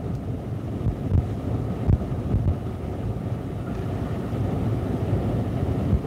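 Storm-driven lake waves crashing over a seawall while wind gusts, heard from inside a parked car. It is a steady rushing noise with a couple of low thumps about one and two seconds in.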